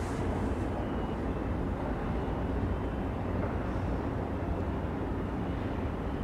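Steady low rumble of a large container ship's engine as the ship passes close by, with a constant deep hum.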